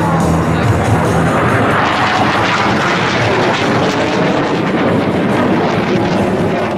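Blue Angels F/A-18 Hornet jets passing in formation: a loud, rushing jet roar that swells about two seconds in and eases off near the end.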